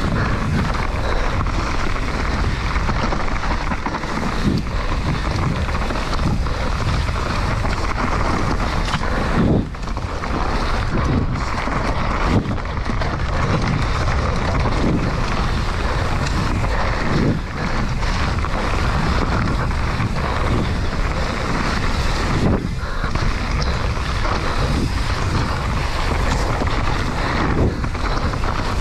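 Wind rushing over the camera microphone and mountain-bike tyres rolling over dirt and dry leaves at speed, a steady loud rush with a few knocks from the bike hitting bumps.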